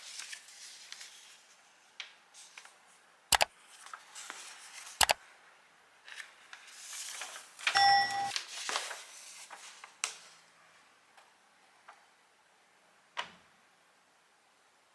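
Hands handling the small Bose Bluetooth audio adapter and its packaging and cables: rustling with sharp clicks, twice near the start and once each later, and a brief pitched tone about eight seconds in.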